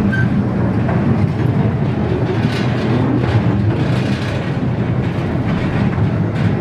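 Zoo ride train running with a steady low rumble, heard from aboard, with a few faint clicks of the wheels on the rails.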